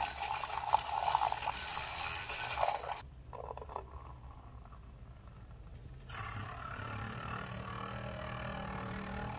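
Handheld battery milk frother whirring and whisking milk in a glass mug. It drops to a much quieter stretch about three seconds in while coffee is poured, then whirs again with a steady low hum as it mixes the coffee into the milk.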